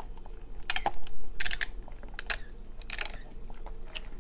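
Close-miked eating and handling sounds: a handful of short, sharp crackling clicks, loudest about a second in.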